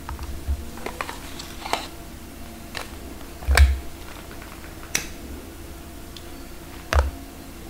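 Irregular sharp clicks and taps of a computer keyboard and mouse being worked, about seven of them, the loudest a little past halfway with a dull thump beneath it.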